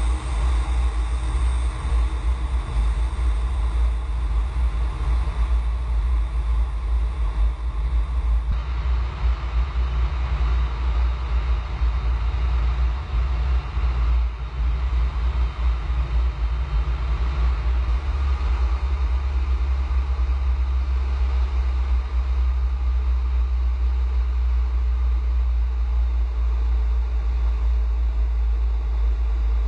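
Steady, loud rumble and rush of a fighter jet's engine and airflow heard inside the cockpit.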